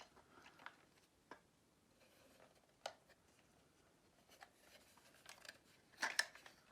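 Faint handling noises from a plastic toy train locomotive being turned over in the hands: scattered light clicks and rubs, with single sharp ticks about a second and three seconds in and a short cluster of clicks near the end.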